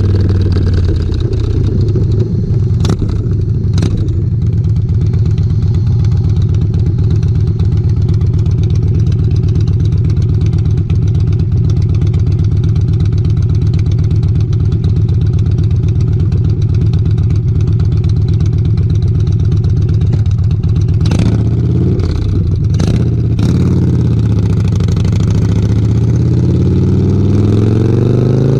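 Yamaha Road Star Warrior 1700's V-twin idling steadily through a Pacific Coast Star 2-into-1 Roadster exhaust with a Vortex race baffle. There are a few sharp clicks, twice near the start and three times later on. Near the end the engine pitch rises as the bike accelerates away.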